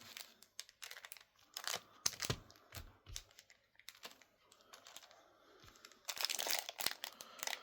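Trading-card packaging and cards being handled: crinkling and rustling with scattered light clicks, denser and louder for about a second and a half near the end.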